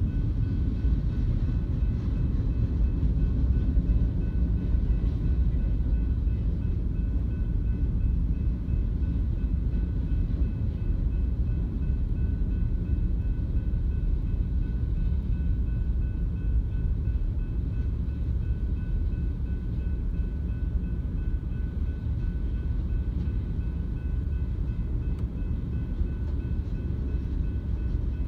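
Freight train of hopper, box and tank cars rolling slowly through a level crossing: a steady low rumble of wheels on the rails, with faint steady high tones above it.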